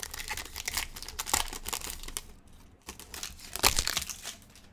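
Foil wrapper of a trading-card pack crinkling and tearing as it is opened. The crackle is dense for the first couple of seconds, quieter after, with a louder crackle about three and a half seconds in.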